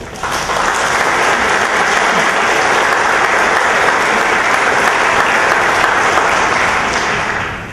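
An audience applauding in a large hall: steady clapping that sets in at once, holds for about seven seconds and dies away near the end.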